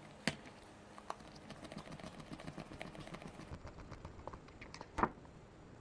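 Small clicks and ticks of hands working with small screws, tools and headset parts, with a sharper click just after the start and a louder knock about five seconds in.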